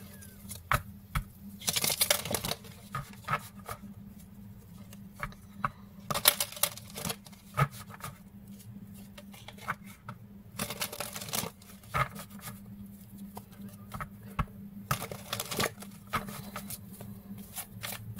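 A deck of oracle cards being shuffled and handled by hand: irregular spells of cards sliding, riffling and clicking against each other, over a faint steady hum.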